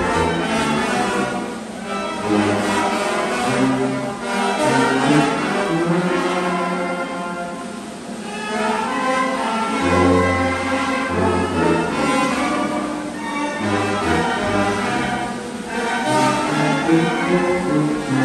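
Instrumental music accompanying a traditional dance: a sustained melody over a bass line that moves in long held notes.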